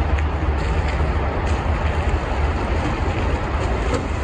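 Jeep Wrangler JL running steadily as it crawls along a muddy trail: a low, even rumble with a few faint clicks.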